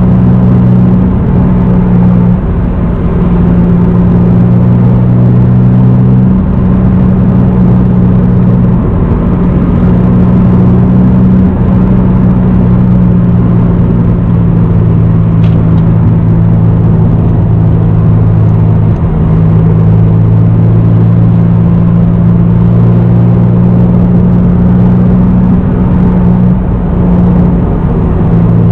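Naturally aspirated 3.0-litre straight-six of a 1993 Toyota Supra, fitted with a complete aftermarket exhaust and a K&N cold air intake, running at a steady cruise with a deep drone. The engine note drops in pitch a few times along the way.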